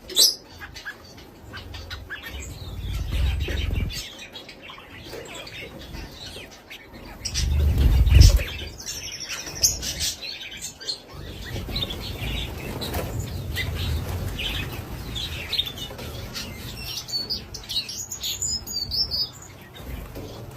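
Several wild birds chirping and singing in short, repeated calls and trills. Low rumbling swells come in twice, the louder one about eight seconds in.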